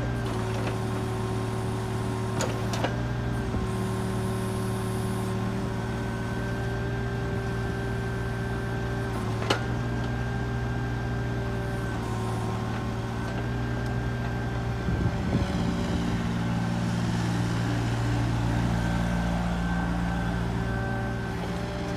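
Hitachi excavator's diesel engine running steadily, with a few sharp metallic knocks from the machine.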